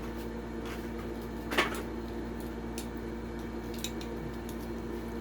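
Toy car packaging being handled and opened, with a few faint clicks and one louder sharp crackle about a second and a half in, over a steady low hum.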